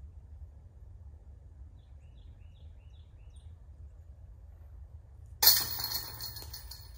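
A putted disc hitting the metal chains of a disc golf basket about five and a half seconds in: a sudden loud metallic jangle that rings and fades over about a second. Faint bird chirps come a few seconds before it.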